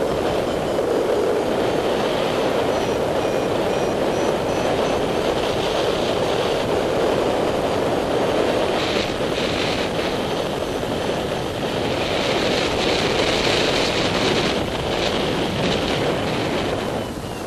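Steady rush of wind over the microphone of a paraglider in flight, with a brighter hiss swelling and fading a few times in the second half.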